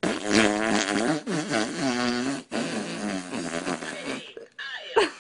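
A long, loud, pitched fart in three stretches separated by two short breaks, followed by a brief falling squeak near the end.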